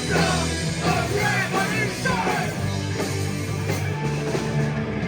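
A hardcore punk band playing live: distorted electric guitars, bass and drums, with bending lead lines near the start of a passage between sung verses.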